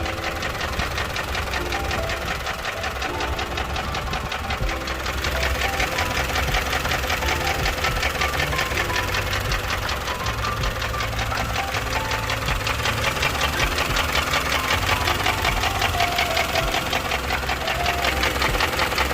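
Honda K20A4 2.0-litre four-cylinder engine running with a fast, steady rattling tap from the engine. The cause is undiagnosed: the owner has ruled out cam lobe galling and timing being out.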